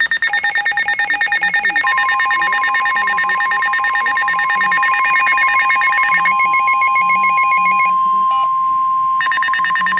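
Emergency Alert System alarm tones: a harsh, rapidly pulsing electronic alarm, joined about two seconds in by a steady high warning tone that runs on beneath it. The pulsing drops out for about a second near the end, then comes back.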